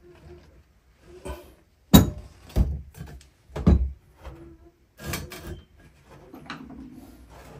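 A series of hard knocks and clunks, about six in all, spaced irregularly with the loudest about two seconds in, as objects are handled and set down.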